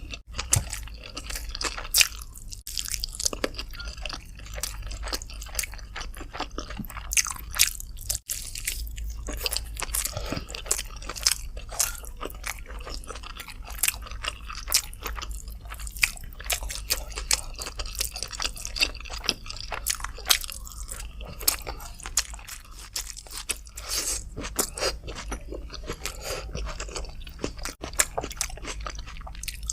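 Close-miked chewing and crunching while eating chicken with rice: a dense, irregular run of short sharp mouth clicks and smacks.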